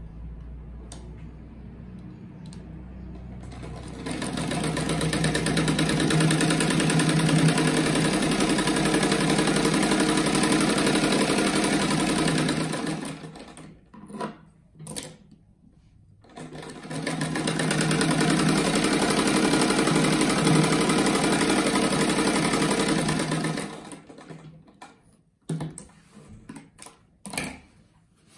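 Sewing machine stitching a fabric strip onto a patchwork square in two steady runs of about nine and seven seconds, with a short pause between them. A low hum comes before the first run, and there are a few light clicks and knocks of handling near the end.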